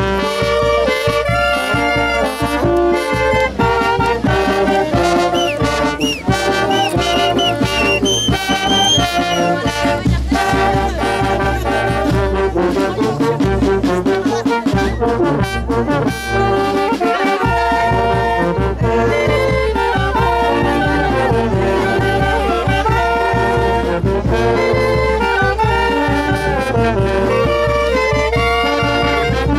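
Andean brass band playing a tune: trumpets, trombones, clarinets and sousaphones over a steady beat, with hand cymbals.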